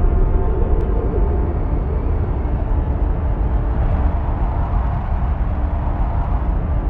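A steady, loud, deep rumble with a faint noisy haze and a few held tones above it.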